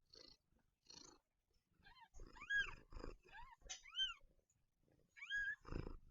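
Newborn kittens mewing: about five short, high-pitched squeaks, each rising and falling in pitch, starting about two seconds in over faint soft rhythmic rustling.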